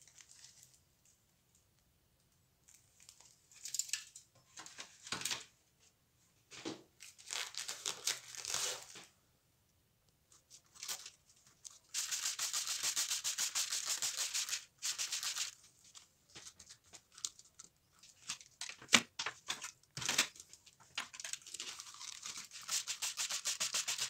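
Rusty steel wrenches being set into a foil tray, with crinkling foil and light clatter. After that, a trigger spray bottle spritzing them in rapid repeated pumps, broken by a couple of sharp knocks.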